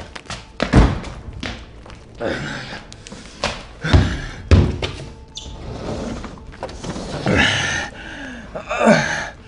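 A string of heavy thumps and knocks, the loudest about a second in and around four seconds in, with some room echo. Near the end come a few hard, gasping breaths.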